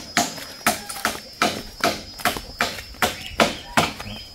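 Hammer driving thick nails into wooden boards: a steady run of sharp strikes, about two and a half a second.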